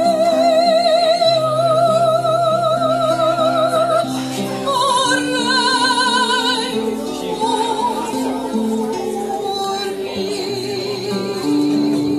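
Live singing with a wide vibrato on long held notes over a plucked acoustic guitar accompaniment. About five seconds in, the voice moves up to a higher held note, then settles back lower.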